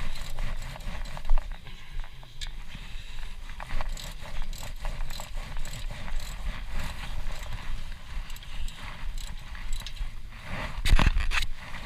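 Ratchet socket wrench clicking in irregular runs while a brake caliper bolt is being loosened, with a louder clank near the end.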